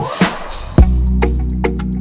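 Background music with a drum-machine beat. It opens with a whooshing noise sweep, and a heavy bass drum hit about three-quarters of a second in brings back the bass line and steady high hi-hat ticks.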